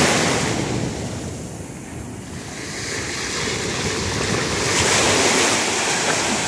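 Ocean surf breaking and washing around a wader's legs, with wind buffeting the microphone. The wash eases about a second in and swells again about five seconds in as a new wave rushes in.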